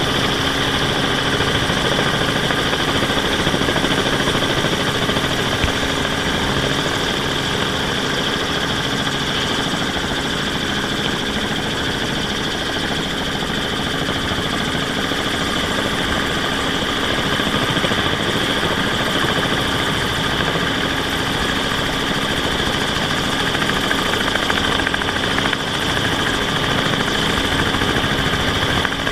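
Steady helicopter engine and rotor noise with a continuous high turbine whine, heard unchanging throughout.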